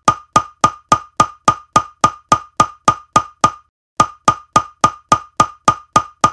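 Sharp percussive click sound effect, repeated evenly about three and a half times a second, each click with a short ringing tone. It breaks off for about half a second a little past halfway, then resumes.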